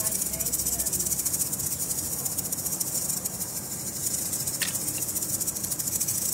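Hand rattle shaken rapidly and continuously, giving a steady high hiss of rapid beads-on-shell pulses.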